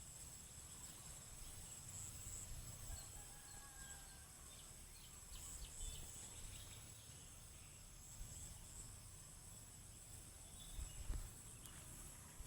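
Faint, steady high-pitched chirring, with a few faint short whistles about three seconds in.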